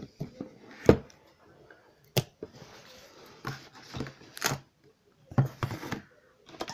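Hands rummaging in a cardboard shoebox: paper or packaging rustling, with a few sharp clicks and knocks, the loudest about a second in.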